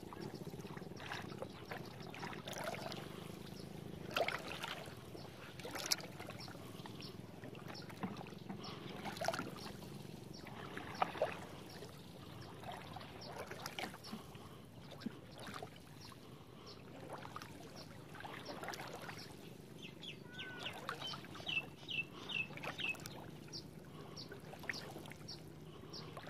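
Water splashing and trickling, with scattered small knocks and splashes over a steady low rumble. A quick run of short high chirps comes near the end.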